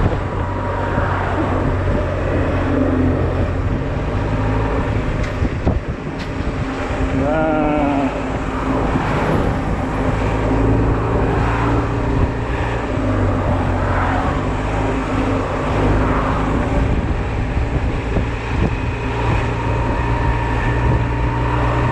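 Honda Silver Wing maxi-scooter's engine running steadily while riding in traffic, with road noise.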